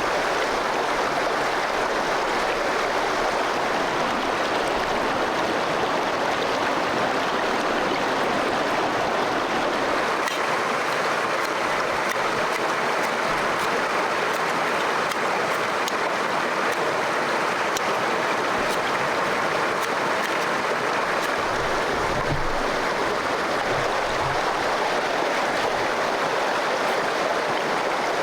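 Forest stream water running steadily, an even continuous rush, with a few soft low thumps about three quarters of the way through.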